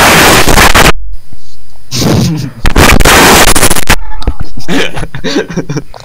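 Harsh, heavily distorted noise from an overdriven budget microphone over a voice call, clipping at full volume. There are two blasts, the first cutting off suddenly about a second in and the second lasting from about two to four seconds, followed by short crackly fragments.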